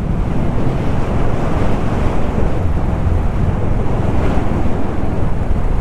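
Wind buffeting the microphone of a motorcycle at road speed: a loud, steady rumbling rush, with the Royal Enfield Classic 350's single-cylinder engine running beneath it.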